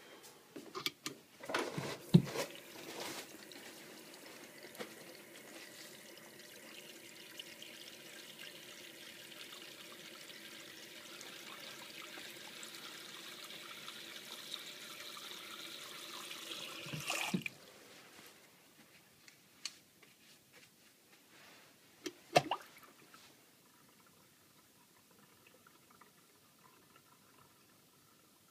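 A chrome pop-up waste plug in a ceramic basin is pressed shut with a few sharp knocks. A tap then runs into the basin for about fourteen seconds, filling it, and cuts off abruptly. Later there is a single click and a sharp knock.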